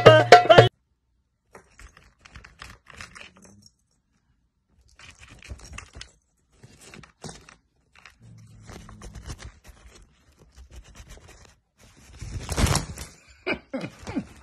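Hand-drum music with singing cuts off suddenly in the first second. Then a cat moves around inside a fabric play tunnel: scattered soft rustles and scrapes of the tunnel material, with a louder burst of rustling near the end.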